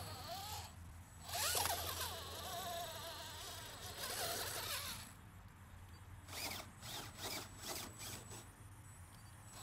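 RC4WD Bully 2 rock crawler's twin 35-turn brushed motors whining through the gears as it climbs rocks. Two longer bursts rise and fall in pitch with the throttle, then several short throttle blips follow in the second half.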